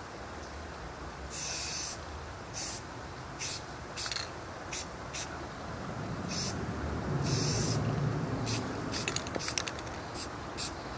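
Aerosol spray-paint can sprayed in separate hissing bursts: a longer spray about a second and a half in, then shorter ones, and a quick run of short taps near the end. A low rumble swells and fades around the middle.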